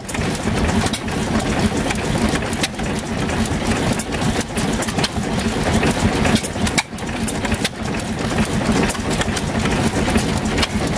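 Antique stationary gas engines running, a steady chugging mechanical noise with sharp firing pops at a bit over one a second.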